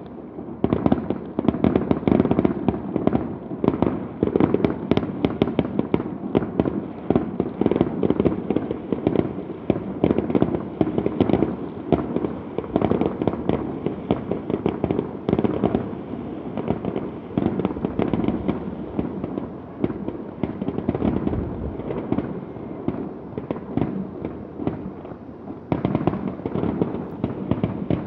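Fireworks display in a dense, continuous barrage: many sharp bangs and crackles a second over a steady rolling rumble.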